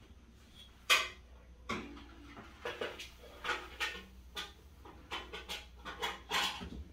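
Oven door opened and a metal baking tray slid onto the oven rack: a sharp clank about a second in, then a string of smaller metallic knocks and scrapes.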